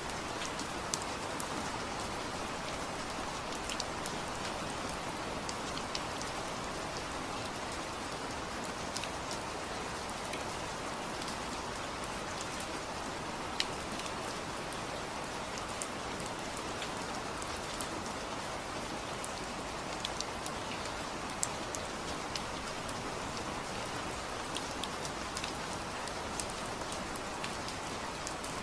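Steady rain falling, an even hiss with many small drops ticking sharply on a surface.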